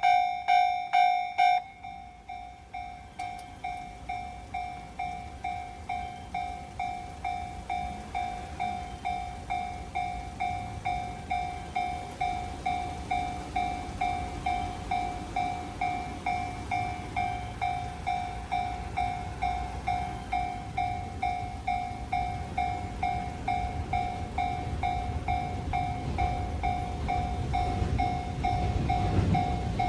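Electronic warning bell of a Japanese railway level crossing ringing steadily at about two strokes a second; a louder second bell stops about a second and a half in. A low rumble of an approaching train builds and grows loud near the end.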